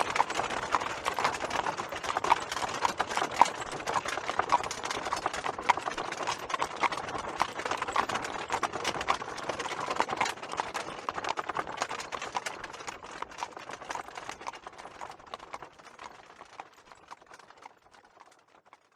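Horse hooves clip-clopping in a dense run of clicks, fading away over the last few seconds.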